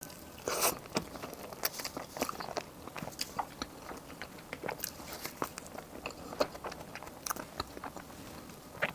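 Close-miked eating of Basque cheesecake: chewing with many short, irregular mouth clicks and smacks.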